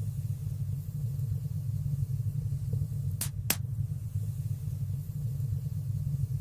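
Fire burning in a fireplace with a steady low rumble, and two sharp crackling pops about a third of a second apart around halfway.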